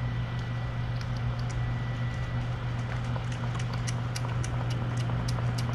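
Mother cat eating wet food from a stainless steel bowl: quick, crisp chewing clicks, sparse at first and coming thick and fast from about halfway in, over a steady low hum.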